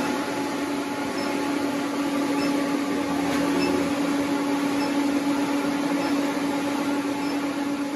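Induction heater running at about 800 amps, heating a steel bar inside its water-cooled copper coil: a steady hum with one constant tone over an even rushing noise.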